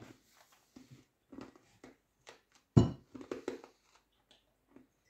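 Chewing a dry salted rusk: a run of short, irregular crunches, with one sharper, louder crack a little under three seconds in.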